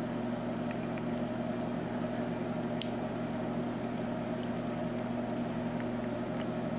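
Steady mechanical hum, like a fan or air-conditioning unit running, with a few faint light clicks of small lock parts being handled, the sharpest a little under halfway through.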